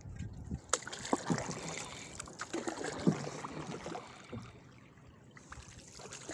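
Wooden paddles dipping and pulling through the water beside a small outrigger canoe, with splashing and trickling and a few sharp knocks.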